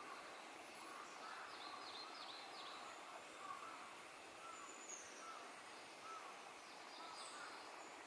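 Faint birdsong from songbirds over a steady outdoor hiss: short mid-pitched notes repeating about twice a second, with a quick run of four high, downward-sweeping notes about two seconds in and a few more near seven seconds.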